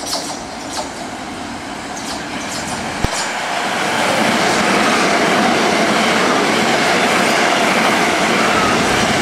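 Southern Class 377 Electrostar electric multiple unit running in along the platform: the rush of wheels on rail rises over the first few seconds and is loud and steady from about four seconds in. A single sharp knock sounds about three seconds in.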